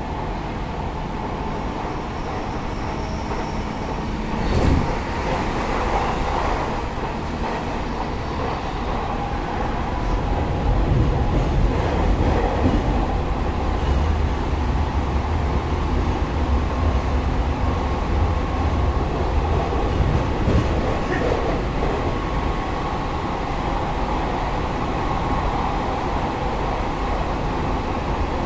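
Hanshin 8000 series electric train running, heard from on board: a steady rumble of wheels and motors, with a single knock about five seconds in. The rumble grows louder from about ten seconds in.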